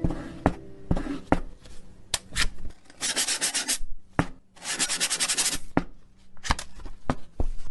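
Scattered sharp clicks and knocks, with two rasping, scraping strokes of under a second each near the middle, like something rough being rubbed or sanded.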